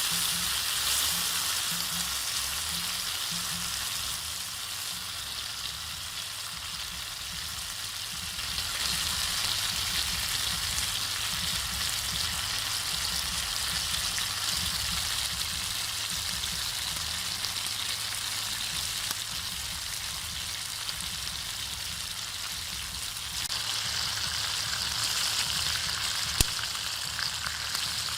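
Pork ribs deep-frying in hot oil: a steady sizzle that grows louder about a third of the way in and again near the end, with a single sharp click shortly before the end.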